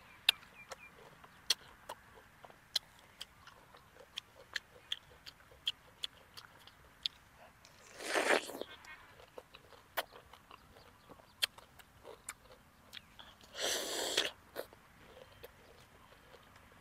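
Close-miked eating of fresh pineapple: wet chewing with many small mouth clicks, and two louder juicy bites into the fruit, one about halfway through and one a few seconds later.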